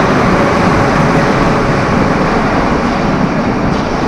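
Moscow Metro "Moskva-2020" train pulling out of the platform and running into the tunnel: a loud, dense running noise that begins to thin and fade near the end.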